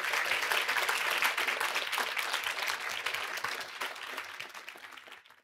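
Audience applauding: a dense patter of many hands clapping that dies down over the last couple of seconds, then cuts off suddenly.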